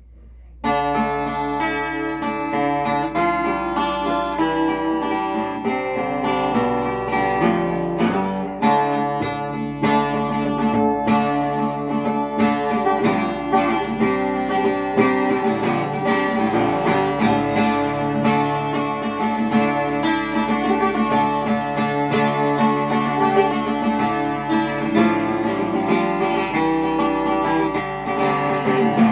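Acoustic guitar being played, starting about half a second in: a run of chords and single notes.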